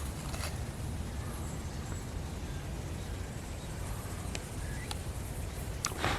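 Forest ambience: a steady low rumble with a few faint bird chirps and scattered crunching or snapping sounds, the loudest near the end.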